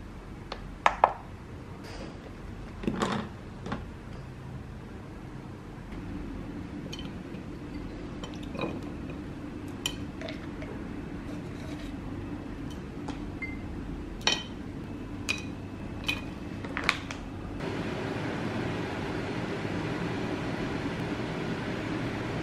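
Ceramic bowls and plates, and utensils, knocking and clinking on a kitchen counter as food is handled, in a string of sharp clicks, the loudest about a second in. About three-quarters of the way through, a steady rushing noise comes in and continues.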